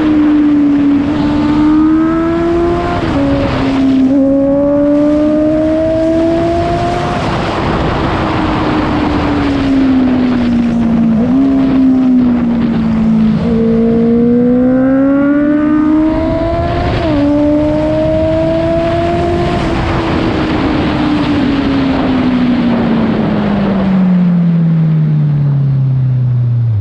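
Honda CBR650F inline-four running through an Akrapovic full-system exhaust with the dB killer removed. The revs rise and fall several times, with sudden steps at the gear changes, then drop steadily over the last several seconds as the bike slows.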